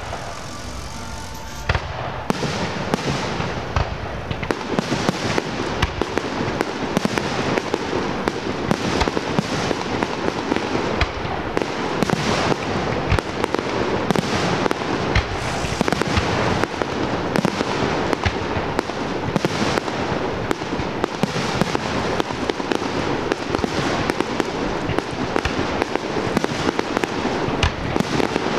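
Fireworks display going off in a dense, continuous barrage of rapid bangs and crackles, starting suddenly about two seconds in and keeping up without a break.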